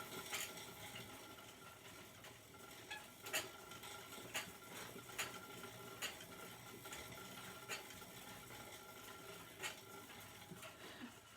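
Faint clicks and ticks from a bike being pedalled indoors, several coming about a second apart, over a low steady hum.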